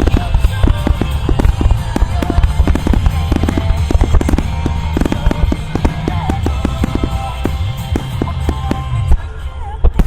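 Rapid barrage of aerial firework shells bursting, many sharp bangs in quick succession over loud music played for the show; the bangs thin out about nine seconds in.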